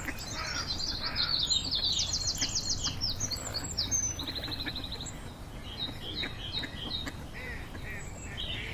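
Small songbirds singing: a busy run of high chirps and fast trills in the first half, thinning to scattered chirps later, over a steady low rumble.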